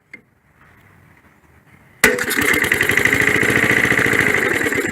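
A 1965 Briggs & Stratton 3 HP single-cylinder engine is spun by its wind-up impulse starter about two seconds in, catches at once and runs fast and steady for about three seconds. Near the end it starts to fade.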